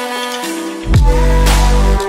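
Electronic ringtone music: held synth notes with a melody that glides between pitches. A little under a second in, a deep bass note comes in with a falling kick, and the music gets louder.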